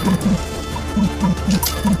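Music with a quick, steady beat: short low notes repeat about three times a second over a continuous bass, with occasional sharp percussive hits.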